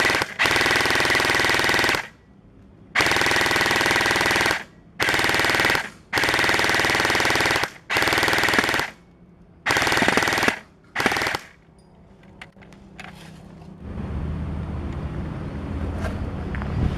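Airsoft guns firing on full auto in seven bursts of rapid shots, each from about half a second to two seconds long, over roughly the first eleven seconds. A low steady rumble follows near the end.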